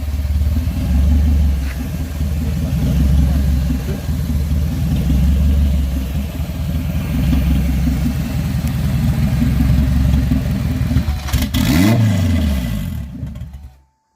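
Modified car's engine running with a deep, throbbing exhaust rumble. It gives one quick rev near the end, then the sound cuts off abruptly.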